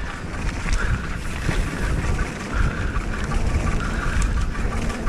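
Riding noise from a bike on a rough trail: wind buffeting the microphone over a steady low rumble, with scattered knocks and rattles from the ride.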